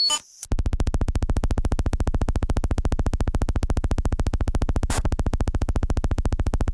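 Synthetic electronic glitch sound: a short blip and a brief gap, then a fast, even pulsing buzz with a strong low end. A short burst of noise cuts across it about five seconds in.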